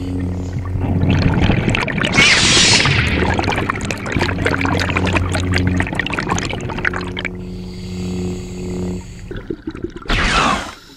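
Breathing through a scuba regulator, with long rushing, bubbling exhalations at about 1–7 s and 10–11 s. Under it runs a steady low hum in several even tones, which stops about six seconds in and returns briefly around 7–9 s.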